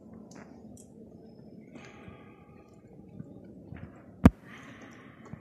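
Quiet cave ambience, a low steady murmur, broken by one sharp click a little after four seconds in.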